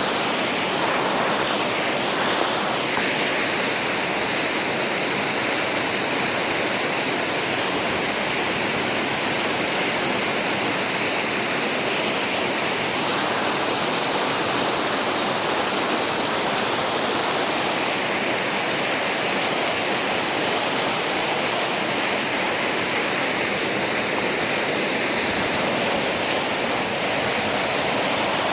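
Waterfall's falling water making a steady, loud rushing hiss.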